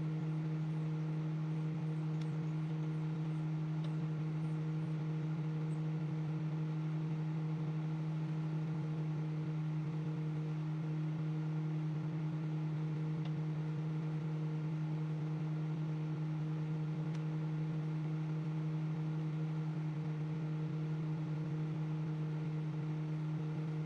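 Microwave oven running: a steady, unbroken hum with one low tone and its overtones.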